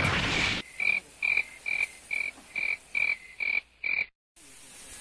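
A frog croaking in a steady rhythm, about two calls a second, for some four seconds. It opens on a short burst of rushing noise. After a sudden break into silence a faint steady hiss takes over.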